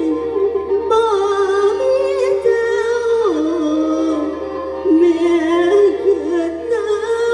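Live mor lam music: an ornamented melody that slides between held notes over a steady drone.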